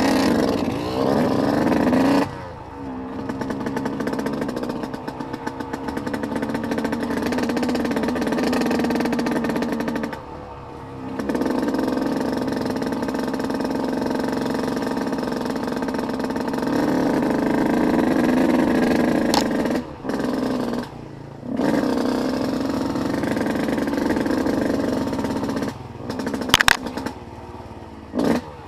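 Off-road vehicle engine running under throttle while riding a trail, its pitch and level rising and falling, with several short drops in the sound and a couple of sharp knocks.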